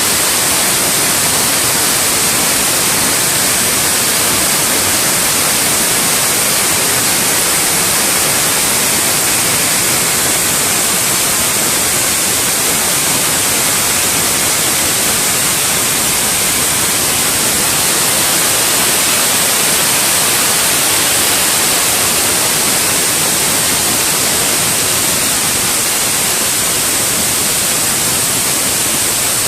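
Vial external washing machine running: a loud, steady hiss with no rhythm or change.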